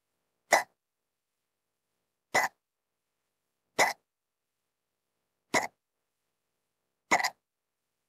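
A woman hiccuping: five short, sharp hiccups at an irregular pace of one every one and a half to two seconds.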